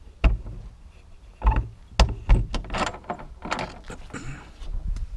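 Knocks, clicks and short scrapes from the door of a home smokehouse cabinet as its handle and latch are worked and the door is pulled open.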